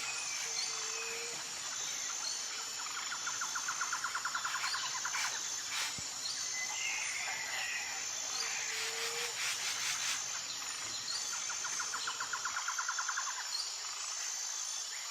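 Outdoor nature ambience: insects chirring steadily, with scattered bird calls. Two rapid trills come a few seconds in and again near the end.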